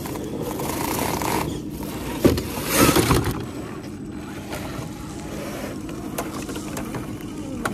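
A radio-controlled scale crawler truck's electric motor and gears whining as it crawls over a fallen log, with loud crunching and knocking of tyres and chassis on bark and leaves around two to three seconds in.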